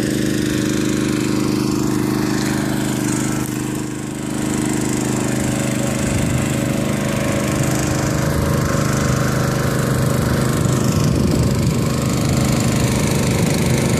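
Small engine-driven water pump running steadily at constant speed, pumping water through hoses into the bag.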